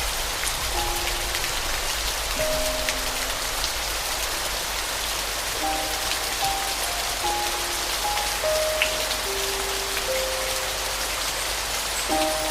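Steady rain falling on a surface, a dense hiss, with sparse soft piano notes played slowly and held over it.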